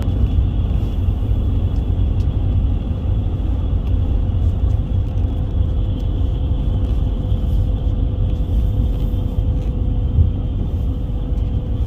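Steady engine and road rumble inside a moving tour bus, with a thin constant whine above it.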